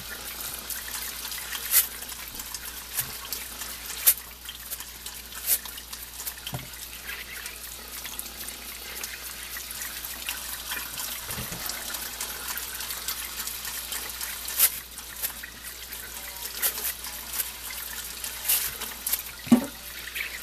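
Wet ears of shucked corn being handled and scrubbed with a desilking brush in a kitchen sink: water splashing and dripping under a steady wet hiss, with scattered sharp knocks as cobs bump against each other and the sink.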